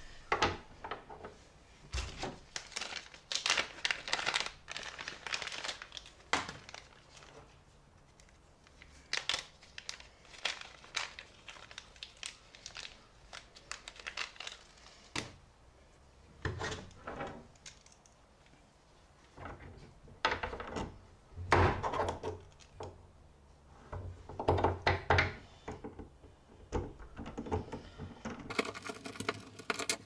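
Small hardware being handled on a canoe gunwale: scattered clicks, knocks and rustling of parts and tools. Near the end, a hand screwdriver turns a screw into the gunwale.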